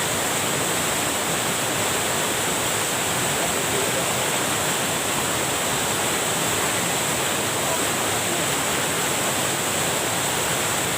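Water pouring over a small waterfall in a stream: a steady, even rush.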